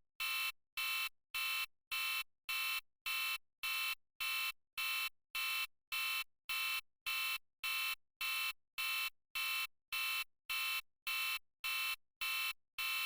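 Countdown timer's electronic alarm going off at zero: a buzzer-like tone beeping over and over, about two evenly spaced beeps a second.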